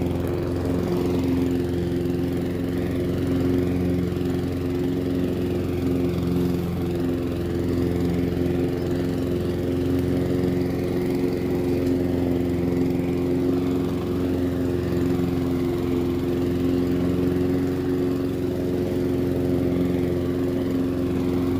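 Walk-behind petrol lawn mower running at a steady, unchanging engine speed while being pushed across the lawn.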